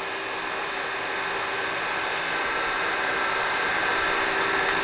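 Webb Model 20-1/2GX60 gap-bed engine lathe running with its power cross feed engaged: a steady mechanical hum with several held tones, growing slightly louder.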